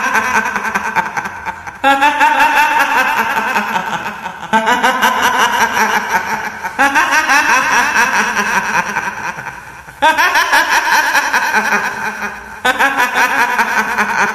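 Kuntilanak ghost laugh: a woman's high-pitched cackling in repeated bursts, a new one starting suddenly every two to three seconds and trailing off.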